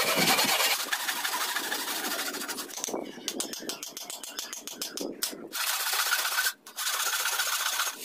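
Hand saw cutting through a bamboo pole in rapid back-and-forth strokes, in several runs with short breaks between them.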